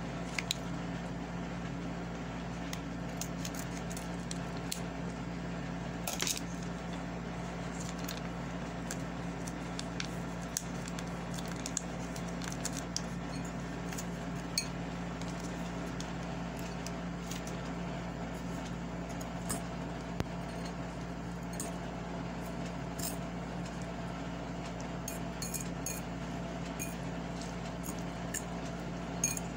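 Metal fork clicking and clinking against a glass bowl while mixing moist noodles with seasoning powder and sauce, the clicks scattered and coming more often near the end. A steady low hum runs underneath.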